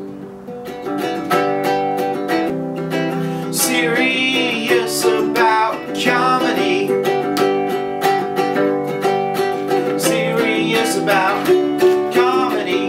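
Ukulele strummed and picked, with high wavering singing along at several points.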